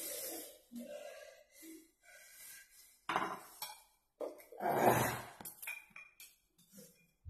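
Chopsticks and plates clinking on a tabletop: several separate knocks and rattles, the loudest about three and five seconds in.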